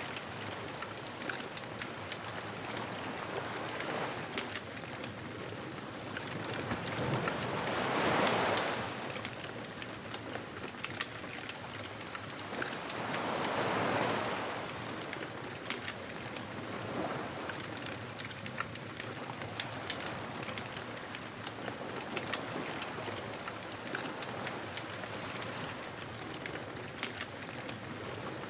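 A wood bonfire crackling with many small, sharp pops over the steady wash of ocean waves. The surf swells up loudest about eight and fourteen seconds in, with smaller surges around four and seventeen seconds.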